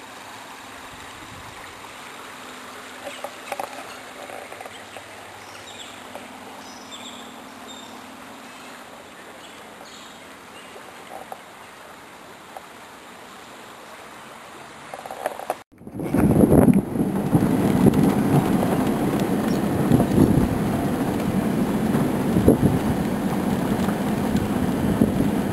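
A creek flowing with a steady soft rush. About two-thirds of the way through it cuts to loud, gusting wind buffeting the microphone.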